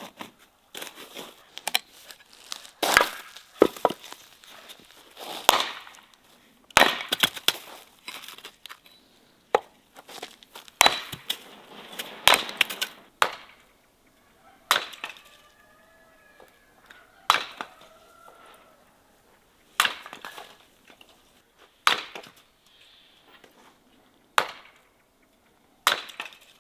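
Axe splitting firewood on a wooden chopping block: a dozen or so sharp strikes, one every two to three seconds, with smaller knocks of split pieces in between.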